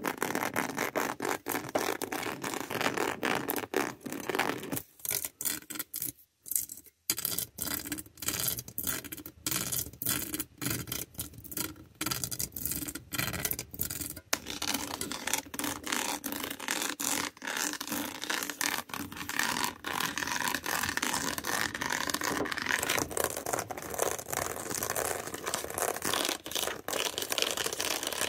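The backs of fingernails scratching and scraping over a surface in quick, dense strokes, with a brief break about six seconds in.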